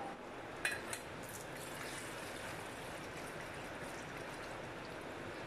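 Kitchen tap running into an aluminium saucepan in a steel sink, a steady splashing of water filling the pan. Two short sharp knocks come just under a second in.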